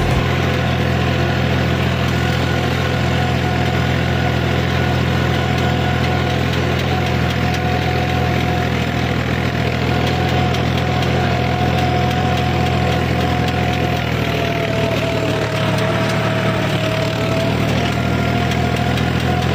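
John Deere tractor's diesel engine running steadily under load while ploughing, with a steady whine over it that sags slightly in pitch a few seconds before the end.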